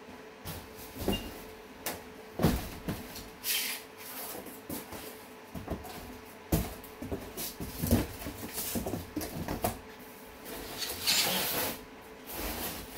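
Handling noise from unpacking: irregular knocks, clunks and rustles of objects and packaging being moved about, with longer scraping rustles about three and a half seconds in and again near the end.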